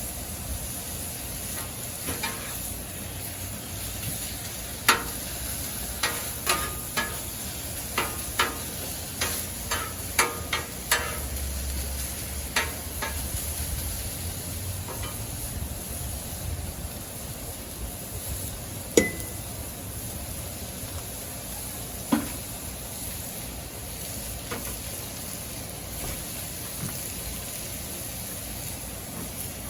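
Food sizzling steadily on a Blackstone flat-top griddle, with a quick run of about a dozen sharp clicks of a metal utensil against the steel cooktop, followed by two more clicks well apart later on.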